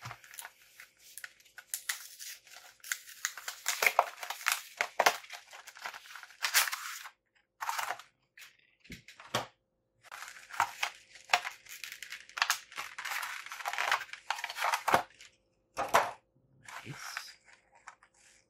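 Clear plastic blister packaging of a trading-card collection box crinkling and crackling as it is pried open by hand. It comes in two long stretches with a few sharp plastic clicks between and after them.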